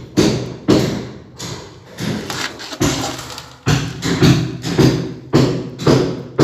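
A run of heavy thuds, about one to two a second at an uneven pace, each with a short low ringing after it.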